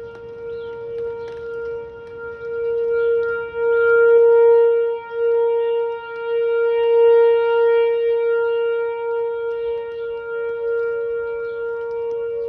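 Whelen 4004 electronic outdoor warning siren sounding a steady tone for a tornado siren test: one unwavering pitch that swells louder twice and eases off between.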